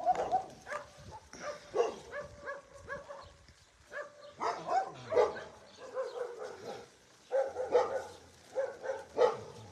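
Dogs barking in runs of short barks, with brief pauses about three and a half and seven seconds in.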